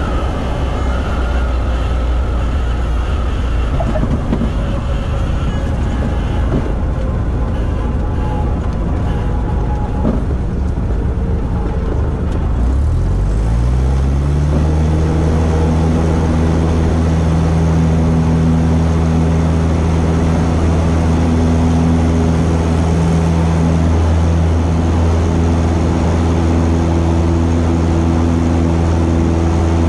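Cessna 172's piston engine and propeller. For about the first twelve seconds the engine runs at low power under a rushing noise as the plane rolls down the runway. About 13 seconds in, the engine rises in pitch to full power for the takeoff and then holds a steady, louder drone through the lift-off and climb-out.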